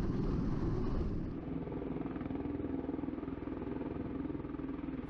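MV-22 Osprey tiltrotor hovering overhead, its rotors and engines making a steady low rumble with a fast pulsing. About a second in, the hiss above it drops away and the sound becomes a little quieter.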